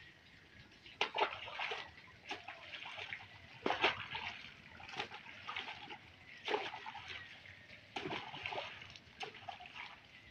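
Live fish thrown one at a time from a crate into a pond, each landing with a short splash, roughly one a second: the pond being stocked.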